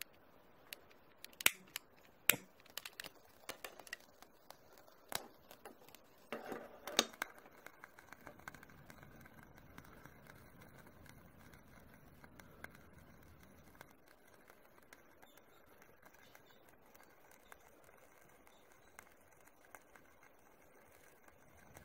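Sharp clicks of a long-nosed utility lighter being sparked at the wick of a small brass burner, a few single clicks in the first seconds, then a short cluster of clicks and knocks from handling the brass burner about six to seven seconds in. After that, only a faint steady hiss.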